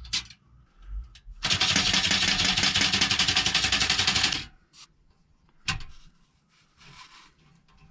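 A rapid, even mechanical rattle of clicks lasting about three seconds, followed a second later by a single sharp knock.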